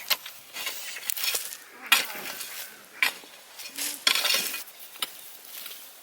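Scraping and knocking of potatoes being dug out of the soil by hand, in uneven strokes roughly once a second.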